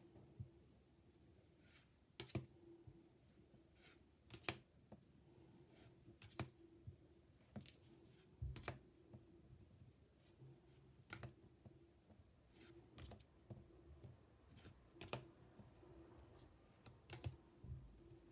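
Near silence: quiet room tone with a faint low hum and scattered faint clicks and taps, about one every second or two.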